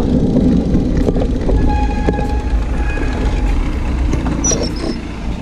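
Wind rumble on the action camera's microphone as a road bike rolls along the road. About two seconds in, a faint steady high-pitched whine is heard for under two seconds.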